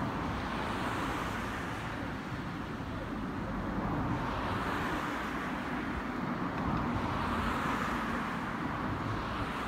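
Steady outdoor background noise of distant traffic and rail yard hum, swelling a little now and then, with no train passing close by.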